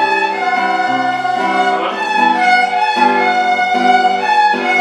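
Instrumental music led by bowed strings such as violins: held notes that change every half second or so, over a low bass line.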